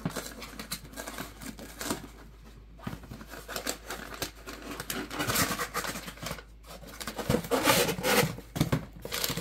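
Cardboard shipping box being opened by hand: flaps and paper rustling and scraping, with louder rasping stretches about five seconds in and again near eight seconds.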